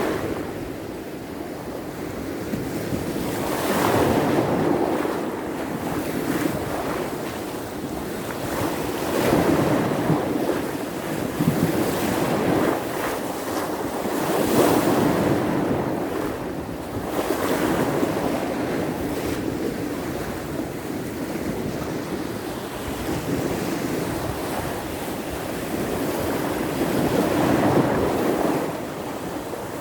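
Sea surf in a small storm: waves breaking and washing ashore in repeated surges every few seconds, with wind gusting over the microphone.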